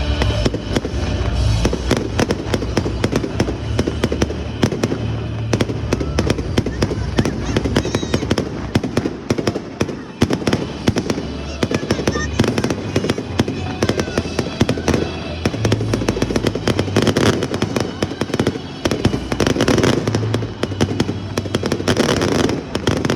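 Fireworks display going off in a dense, continuous run of bangs and crackles, with music playing underneath.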